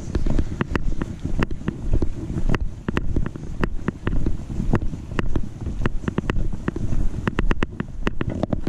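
Handling noise from a GoPro clipped to a backpack chest strap, jolted with each walking step: a steady low rubbing rumble with frequent sharp clicks and knocks, some in quick runs.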